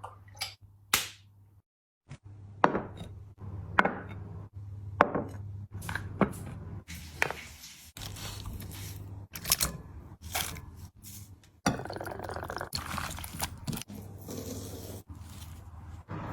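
Eating sounds: an irregular string of sharp clicks and knocks from utensils against dishes and bites of food, over a low steady hum.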